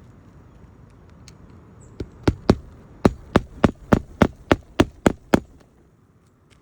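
Hammer driving roofing nails into a replacement asphalt shingle: eleven sharp blows at about three a second, with a short pause after the first two.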